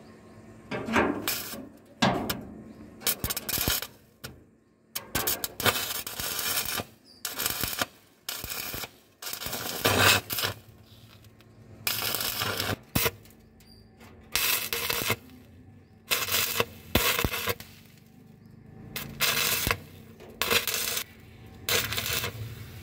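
Stick (arc) welding crackling in about fifteen short bursts, each under a second to about a second, with gaps between them. These are tack or stitch welds fixing steel support bars to the underside of a zinc-coated steel sheet platform.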